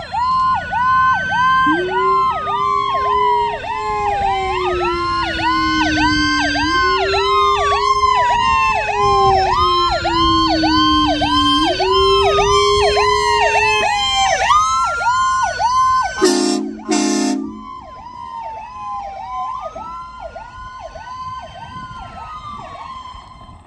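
Fire truck sirens sounding together: a fast yelping tone over slow wails that rise and fall every few seconds. Two short horn blasts come about sixteen seconds in, after which the sirens carry on more quietly.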